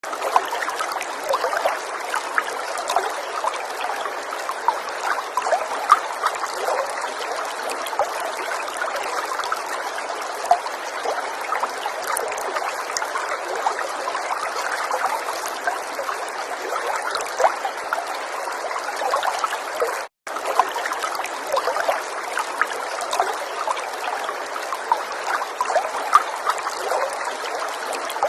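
Falling water trickling and splashing steadily, with many small drips and splashes in it. The sound cuts out for a split second about two-thirds of the way through.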